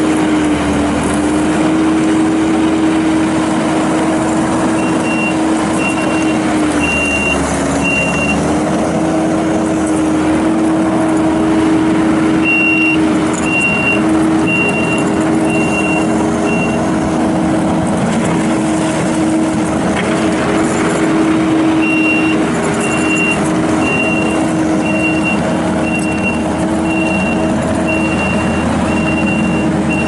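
Kubota SVL75-2 compact track loader's diesel engine running steadily, its pitch dipping briefly twice as it takes load. A high reversing alarm beeps about once a second in three runs as the machine backs up.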